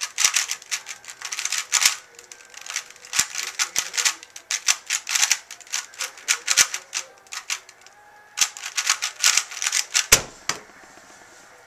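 Alpha 2 speedcube being turned fast during a speedsolve: quick runs of plastic clacking from the layer turns, broken by two short pauses. About ten seconds in comes a single thud as the cube is set down and the hands slap the Stackmat timer to stop the solve.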